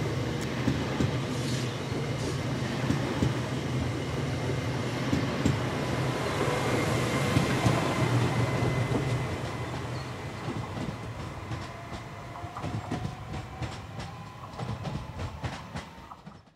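Trenitalia ETR 104 'Pop' electric multiple unit passing and pulling away, its wheels clicking over the rail joints, with a whine rising in pitch in the second half. The sound fades as the train recedes and cuts off suddenly at the end.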